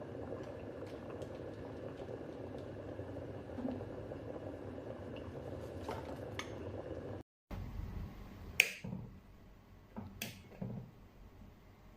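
Foldable electric travel kettle heating water: a steady rumbling hiss with faint ticks. It stops abruptly about seven seconds in, and two sharp clicks and a few soft knocks follow.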